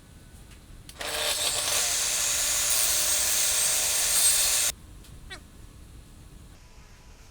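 A woodworking power tool runs for a few seconds, starting and stopping abruptly, with a loud hissing, whirring noise.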